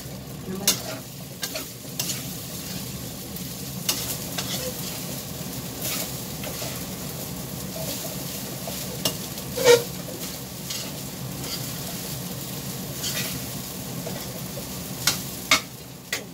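Fried rice sizzling in a stainless-steel wok on a gas burner as it is stirred and tossed with a spatula. A steady sizzle is broken by about eight sharp knocks and scrapes of the spatula against the pan; the loudest comes a little under ten seconds in.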